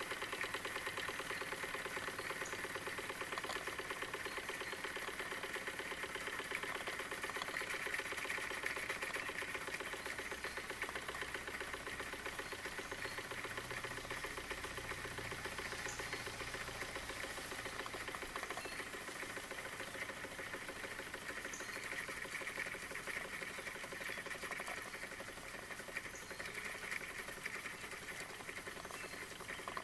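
Wilesco D-18 toy steam engine running fast: a rapid, even clatter of its oscillating cylinder driving the flywheel, getting slightly quieter near the end.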